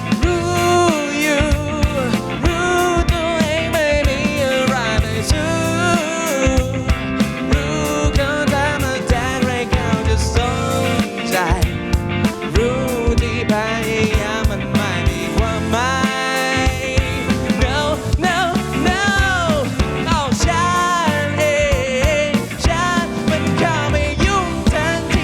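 A band playing a pop-rock song, with electric guitar and a steady drum beat under a bending melody line.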